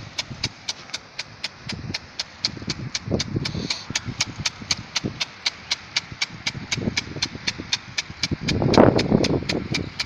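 Impact sprinkler gun on a hose-reel irrigator's cart ticking steadily, about four sharp clicks a second, as its swing arm strikes the water jet over the hiss of the spray. A louder rush of noise joins in near the end.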